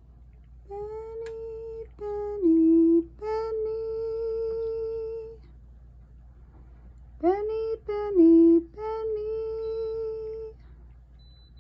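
A woman humming a slow tune: long held notes, some stepping down a little, in two phrases with a pause of about two seconds between them.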